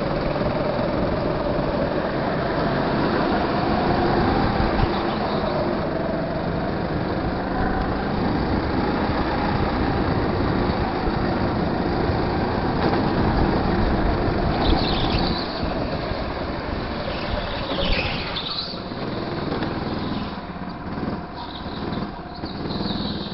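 Go-kart engine running hard on the track, its note rising and falling with throttle through the corners, with other karts close by. A couple of brief high squeals come near the middle. The engine sound drops away near the end as the kart slows into the pits.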